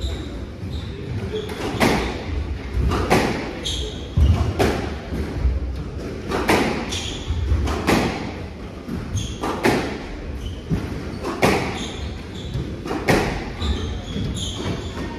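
A squash rally: the ball cracks sharply off racquets and walls about once a second, with thudding footfalls and short squeaks of court shoes on the wooden floor, in a reverberant hall.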